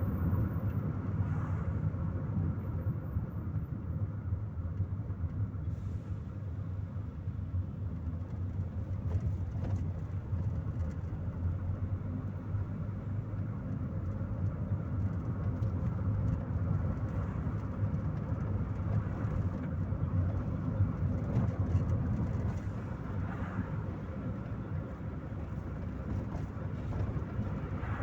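Chevrolet Corsa Maxx driving along, heard from inside the cabin: a steady low engine and road rumble with tyre hiss.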